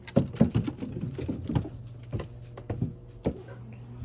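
Footfalls on wooden stairs as a Dalmatian climbs them: a quick, irregular run of knocks and thuds over the first three seconds or so.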